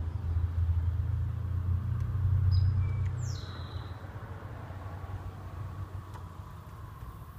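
Low rumble of a vehicle passing by, swelling to its loudest about two and a half seconds in and then fading away. A short bird chirp is heard around the same time.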